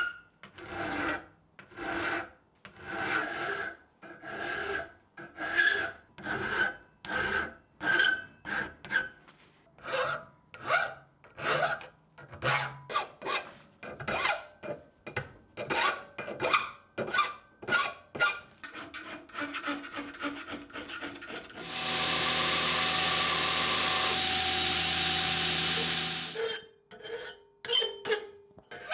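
Hand file rasping across a forged steel ring held in a vise, in repeated strokes of about one to two a second, with a faint ring from the steel on some strokes, taking off forge scale down to bright metal. Near the end a louder steady sound with a hum in it runs for about four seconds.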